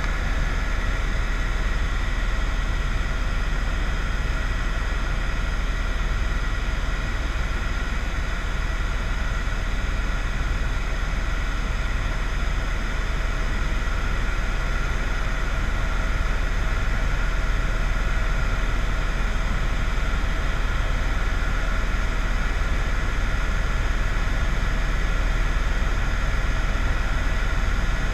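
Steady rumble and hiss of a moving vehicle, unchanging throughout, with a few faint steady tones in it.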